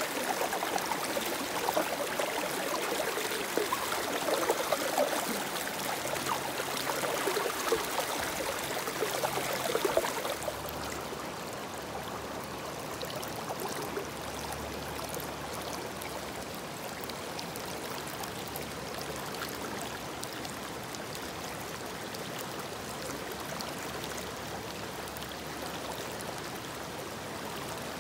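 River water running. For about the first ten seconds it is louder and uneven. Then it drops abruptly to a softer, steadier rush.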